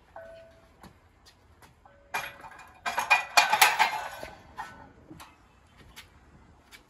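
Iron weight plates on a loaded barbell clanking and rattling on the bar, a loud burst of metallic clanks and ringing about two seconds in that lasts a couple of seconds, followed by a few light clicks.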